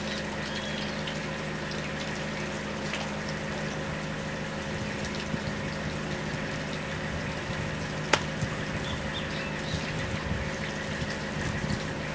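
Water running from a brass tap onto hands and splashing into a concrete sink as hands are rinsed and rubbed under it. One sharp click about two-thirds of the way through.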